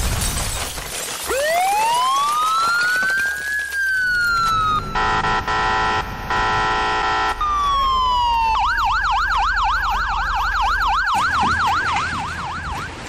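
Fire engine siren: a slow wail that rises and falls, two steady horn blasts, then a fast yelp sweeping up and down about four times a second, over a low engine rumble.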